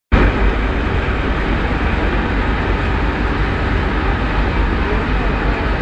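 Steady, loud mechanical din of tea-processing machinery running, a metal drum and conveyor line, with a strong low rumble. The sound drops out for an instant right at the start.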